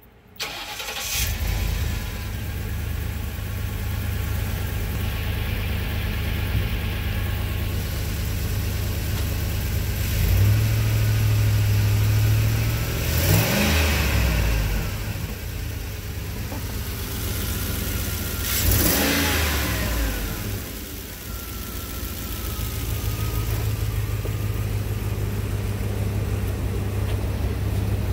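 2005 Ford E250 van's 5.4-litre V8 starting up just after the beginning, then idling steadily. It is revved and held up for about three seconds around the middle and falls back to idle, is revved briefly once more, then settles back to idle. Heard from inside the cab.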